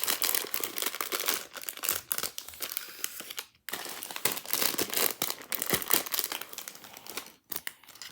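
Thin plastic bags of Nanoblock pieces crinkling as they are handled and opened, with two short pauses.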